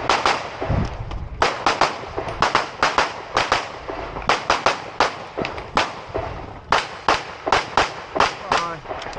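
Open Division competition handgun firing rapid strings of shots, about four to six a second, with short pauses between strings. This is a practical shooting stage being shot at speed.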